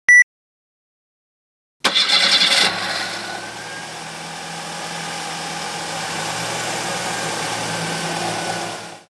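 A short electronic beep, then after a pause a car's starter cranks the engine for under a second. The engine catches and settles into a steady idle, which cuts off abruptly near the end.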